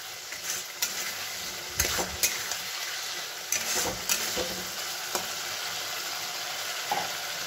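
Potatoes and onion-ginger-chilli paste sizzling steadily in hot oil in a metal kadai while a metal spatula stirs them, scraping and knocking against the pan several times. This is the masala being fried down (kasha).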